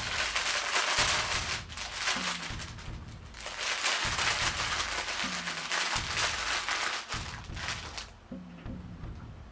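Packaging being handled, crinkling and rustling, until it stops abruptly near the end, over background music with a repeating bass line.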